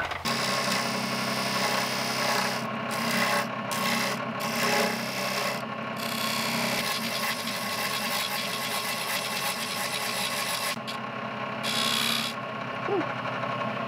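Wood lathe running with a steady motor hum while a hand-held turning chisel scrapes a groove into a spinning hickory spool. The scraping breaks off for moments several times as the tool comes off the wood.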